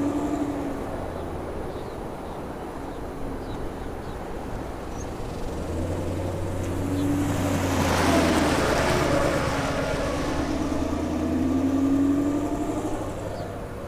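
2019 Camaro SS's 6.2 L V8, breathing through long-tube headers and a catless X-pipe, driving figure eights: the engine note rises and falls again and again as it pulls through the turns, louder around eight seconds in and again near the end. The figure eights work in fresh differential fluid, and no noise from the differential is heard.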